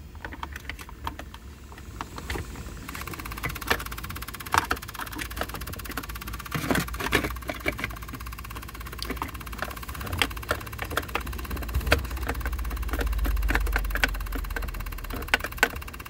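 Scattered clicks and light rattles of hands working a gear shift cable and plastic console trim. A low rumble swells and fades near the end.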